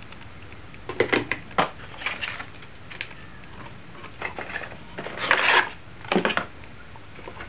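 Handling of a cardboard phone box and its accessories: a few sharp taps and knocks about a second in, a short sliding scrape of cardboard a little after five seconds as an inner tray is lifted out, then a couple more clicks.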